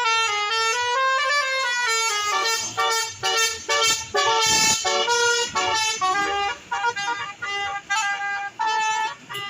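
Bus's basuri musical horn playing a melody: held, stepped notes with a slow rise and fall in pitch about a second in, then a quicker run of short notes.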